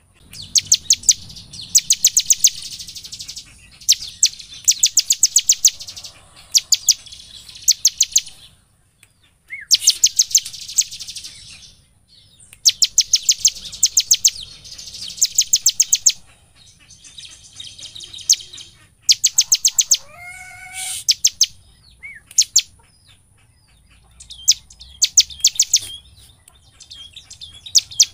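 Bar-winged prinia (ciblek) in full song: rapid, high, dry chattering phrases about a second long, repeated again and again with short pauses.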